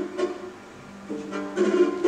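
Live music on a long-necked plucked lute: a run of plucked notes with sharp attacks, quieter for about half a second in the middle before the playing picks up again.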